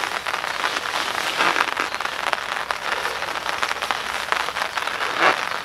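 Rain pattering steadily, a dense, even crackle of fine drops.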